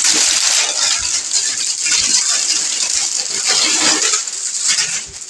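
Clear plastic wrapping crinkling and rustling loudly as it is pulled off a new plastic baby walker, easing off near the end.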